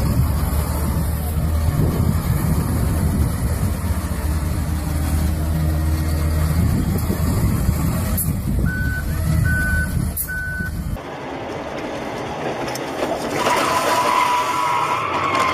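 Heavy diesel engines of a wheel loader and a snowplow dump truck running with a deep, steady rumble, and a backup alarm beeping three times about nine seconds in. The sound then cuts suddenly to thinner road noise from a car on a highway.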